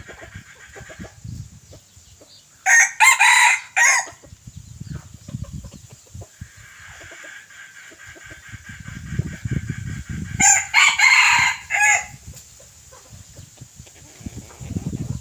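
Roosters crowing: two loud crows, one about three seconds in and another about ten seconds in, each broken into a few short segments, with fainter crowing from farther off in between.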